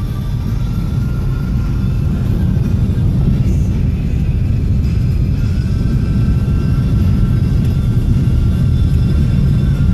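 Steady low rumble of a moving car heard from inside the cabin, engine and tyres on the road, with music playing over it.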